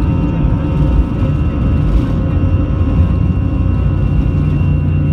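Inside the cabin of an Airbus A320 on its takeoff roll: the engines at takeoff power under a heavy, steady low rumble, with a few steady whining tones above.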